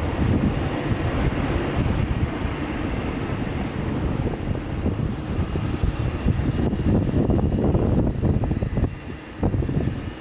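Boeing 787 jet engines running at taxi power as the airliner turns: a loud, uneven low rumble, with a faint high whine joining about six seconds in.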